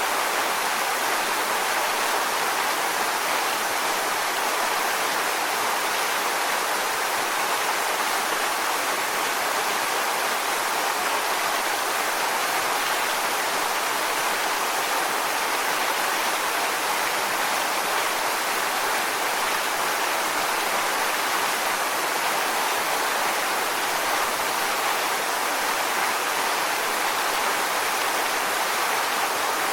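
Waterfall: water falling onto rocks in a steady, even rush with no changes.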